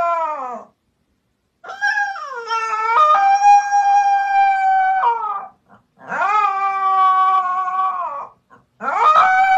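Husky puppy howling: a howl tails off just after the start, then three long howls follow with short gaps between, each held steady before dropping away at the end, the last still going at the close.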